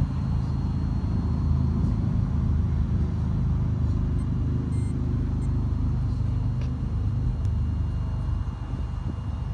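A large vehicle engine idling with a steady low rumble.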